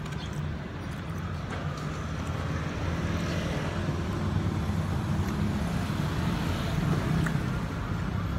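Street traffic: a motor vehicle's engine running close by as a steady low hum, growing louder from about two seconds in and easing slightly near the end.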